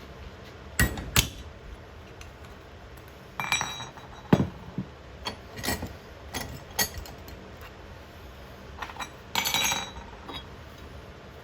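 Irregular clinks and knocks of hard pieces being handled and set down, about a dozen spread out, with a short rattle of several small pieces near the end.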